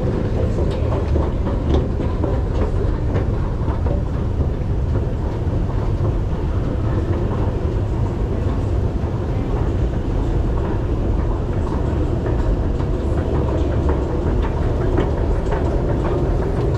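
Station escalator running: a steady low rumble, with scattered faint clicks from the moving steps.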